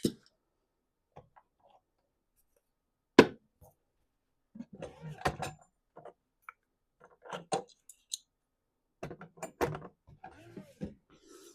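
Parts and hardware being handled during assembly: one sharp knock about three seconds in, then scattered clicks and light clatter.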